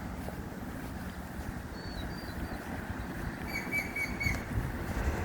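Small songbirds chirping: a couple of short high calls about two seconds in, then a quick trill of repeated notes a little past halfway, over a steady low background rumble.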